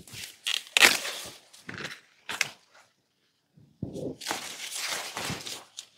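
Sweet corn stalks and leaves rustling and crackling as ears are pulled off by hand, with two sharp snaps, about a second in and halfway through, where ears break from the stalk.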